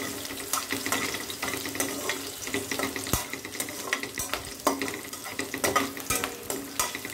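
Chillies, garlic and whole spices sizzling in hot oil while a spatula stirs them round a dark-coated kadai, scraping and tapping against the pan several times a second.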